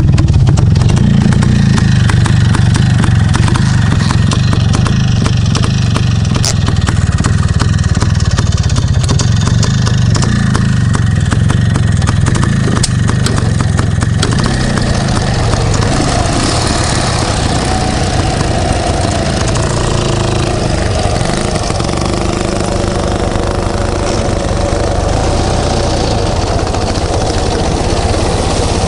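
Ural Tourist sidecar motorcycle's flat-twin engine running loudly close by, with a dense, even beat at first; about halfway through its sound changes as the motorcycle moves off through the grass under power.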